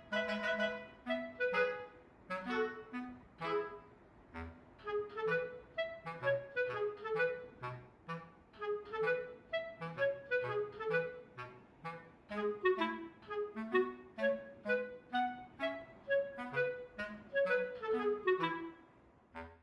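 Light instrumental background music: a quick run of short, bouncy notes in a melody that moves up and down, with a lower line underneath and a brief break at the very end.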